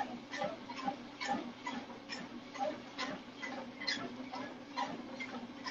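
Footsteps at a walking pace, about two steps a second, over a steady low hum.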